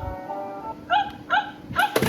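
Electronic toy robot dog's speaker playing a short jingle of held electronic tones, then three recorded yapping barks about half a second apart in the second half.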